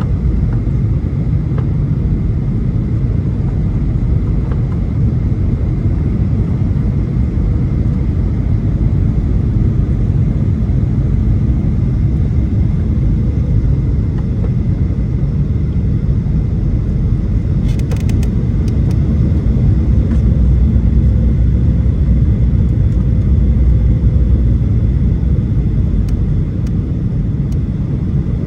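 Cabin noise of a Boeing 737-800 on final approach: the steady low rumble of its engines and the airflow over the fuselage, with a faint thin whine above it. A brief crackle of clicks comes about two-thirds of the way through.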